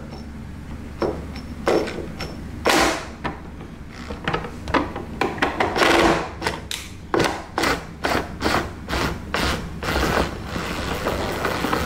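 Irregular clicking and knocking from a dishwasher's plastic rear leveling-leg mechanism as its adjustment screw is turned with a screwdriver to lower the rear foot. The clicks are sparse at first and come thick and fast from about five seconds in until near the end.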